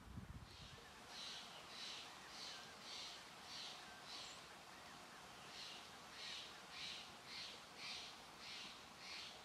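Faint footsteps crunching on gravel railway ballast at a walking pace, about two steps a second, with a short pause near the middle.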